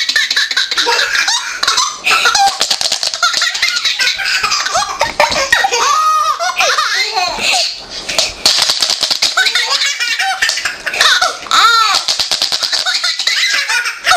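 A baby laughing in repeated belly-laugh bursts, high and loud, with a short lull about halfway through.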